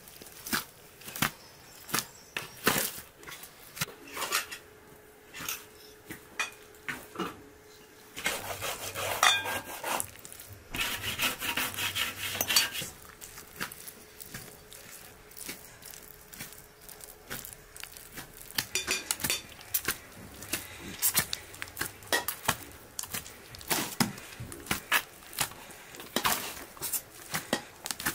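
Hands kneading a large mass of soft dough in an aluminium basin and mixing a fried filling in a glass bowl: many short clicks and taps against the metal and glass, with a denser stretch of clatter about nine to thirteen seconds in.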